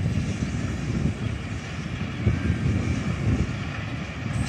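Low, uneven rumble of wind buffeting the microphone over the distant drone of twin RGE-24 diesel-electric locomotives approaching.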